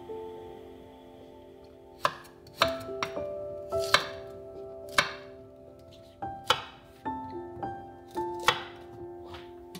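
Chef's knife cutting cauliflower florets on a wooden cutting board: a run of uneven chops starting about two seconds in, roughly one or two a second. Soft background music plays throughout.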